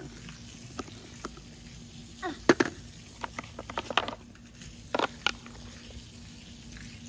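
Scattered sharp clicks and taps of a plastic toy excavator and spray bottle being handled, the loudest about two and a half seconds in, over a faint steady hum.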